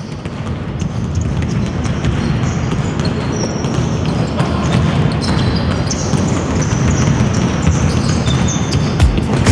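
Many basketballs dribbling on a gym court at once, a dense patter of bounces that fades in and grows louder. Heavy bass thumps of music start near the end.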